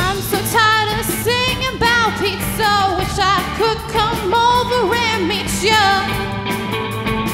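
Live rock band playing: a girl singing lead over electric guitars, bass guitar and drums. The vocal stops about six seconds in, leaving the guitars and drums.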